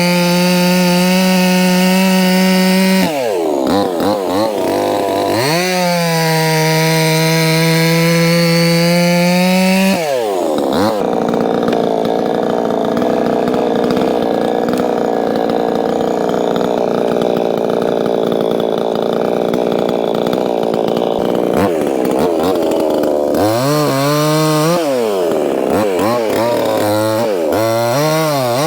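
Proyama 68cc two-stroke chainsaw at high revs. Its pitch falls and climbs back after about three seconds. From about ten seconds in, the steady whine turns rougher for roughly twelve seconds as the chain bites into a log. Near the end the revs rise and fall with the throttle.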